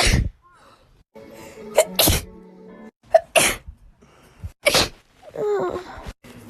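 A young woman's allergy sneezes, about four loud, sharp sneezes in quick succession, some with a short catch of breath just before. Background music plays under part of it.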